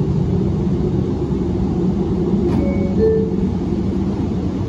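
Bombardier R179 subway car's MITRAC AC traction propulsion running as the train gets under way, a steady hum and rumble from the motors and rails. Brief higher tones step in pitch near the middle, with a faint click about two and a half seconds in.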